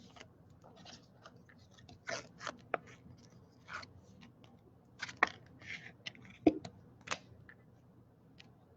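Trading cards and their plastic holders being handled: scattered short clicks, taps and scrapes, the loudest a little after halfway.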